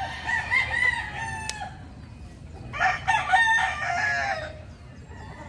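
Roosters crowing: one long crow at the start and another about three seconds in.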